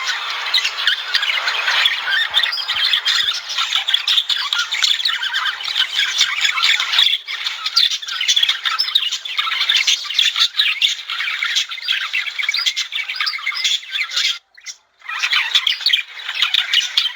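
Budgerigars chattering and warbling in a dense, unbroken stream of quick chirps and squawks, which stops for about half a second near the end and then picks up again.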